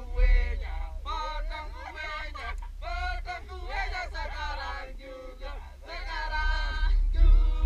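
A small group of men, women and a child singing a birthday song together, with wind buffeting the microphone in a steady low rumble.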